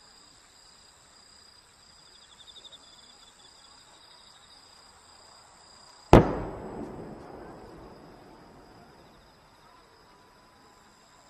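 A large aerial firework shell fired from its mortar: one sharp boom about six seconds in, followed by a long echoing rumble that dies away over about three seconds.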